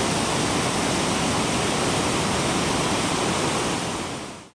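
Rain-swollen river in flood, a fast torrent of brown whitewater, making a steady, loud rushing noise that fades out near the end.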